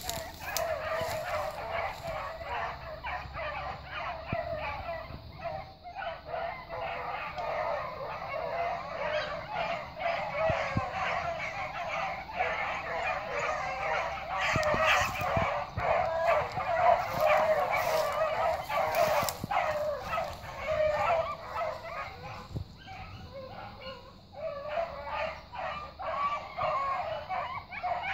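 A pack of beagles baying together, many voices overlapping in a continuous chorus that thins out briefly about three-quarters of the way through and then picks up again.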